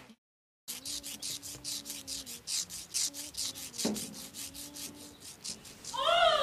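Rhythmic rasping or scraping, several quick strokes a second, over a faint steady hum. Near the end comes a short rising-and-falling call.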